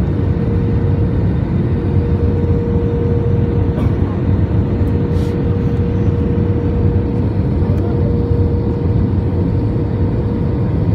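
Steady cabin noise inside an Airbus A320 on approach to land: a deep, unchanging rumble of the engines and airflow with a steady hum running through it.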